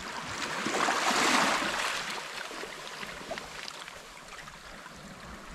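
Small sea wave washing onto a pebble and rock shore, swelling about a second in and then fading, with a few faint clicks.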